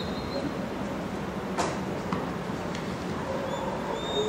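Open-air field ambience: a steady low background hum with faint high chirps, broken by one sharp knock about a second and a half in and a softer one just after.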